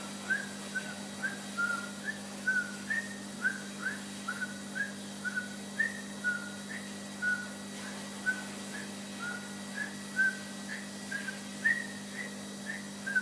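A person whistling short chirping notes at a dog, about two or three a second, some rising and some held level, over a steady low hum.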